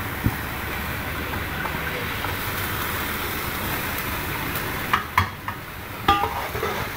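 Chicken pieces frying in oil in a pan, a steady sizzle, with a few sharp knocks on the pan about five and six seconds in.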